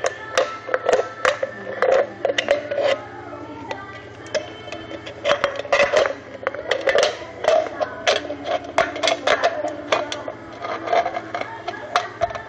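Scissors cutting through a thin aluminium drink can: an irregular run of sharp metallic snips, clicks and crinkles as the blades work around the can.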